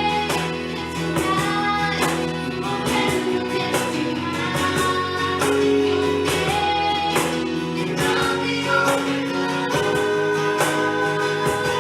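Christian worship band music led by guitar, playing on steadily with sustained notes and a gliding melody line.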